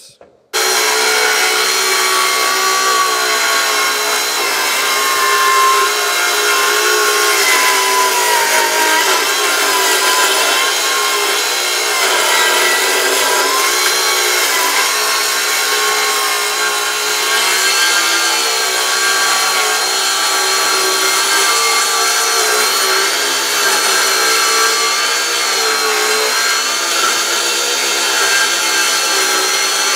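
Circular saw ripping along a wooden beam at a 15-degree bevel, with the blade set almost to full depth. It starts about half a second in and then runs steadily, its whine wavering slightly as it feeds through the wood.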